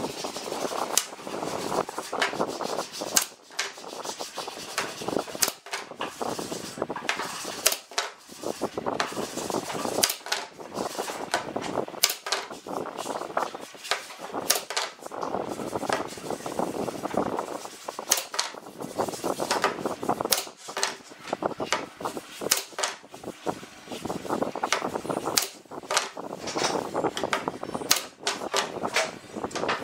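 Pine strips handled on a plywood workbench: the wood slides and rubs, with scattered sharp knocks as the strips are set down and tapped into place.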